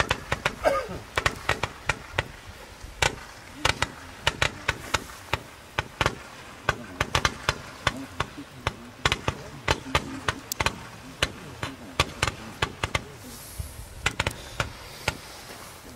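Two Roman candles firing in overlapping sequence: a quick, irregular run of sharp pops, two or three a second, as each shot is launched from the tubes.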